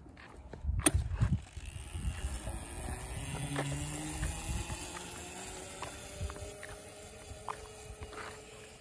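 Razor MX125 electric mini dirt bike's motor whining as it pulls away, its pitch rising slowly as the bike picks up speed. A knock and a brief low rumble come about a second in.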